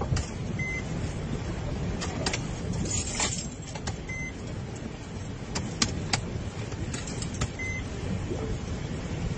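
Vehicle cabin noise while driving through fast-flowing flood water: a steady low rumble with scattered sharp clicks and knocks, and a brief hiss about three seconds in. A short high electronic beep repeats about every three and a half seconds.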